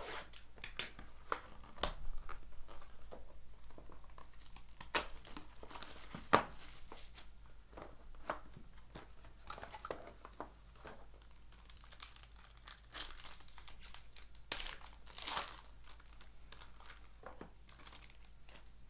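Plastic shrink-wrap crinkling and tearing as a sealed box of trading cards is opened, with irregular crackles and snaps.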